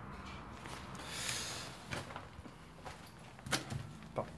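A sharp sniff or breath through the nose close to the microphone about a second in, followed by a few faint, short knocks.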